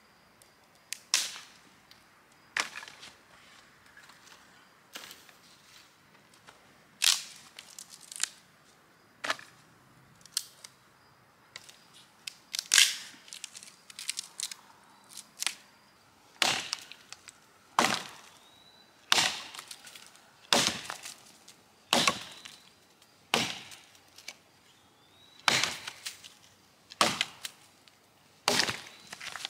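Wood being chopped from a downed tree for firewood: around twenty sharp blows, one every second or so.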